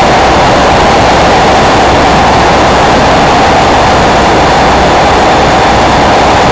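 Loud, steady engine-and-wind noise that runs on without a change.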